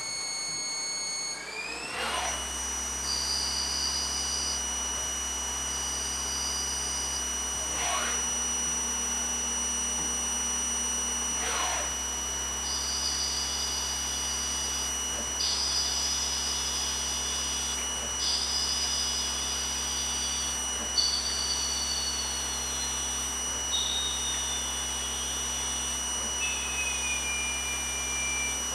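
CNC lathe running and turning a metal part: a steady spindle whine over a low hum, stepping up in pitch about two seconds in as the spindle speeds up. Higher cutting whines switch on and off repeatedly, with a few quick sweeping swishes, and near the end a whine slides down in pitch.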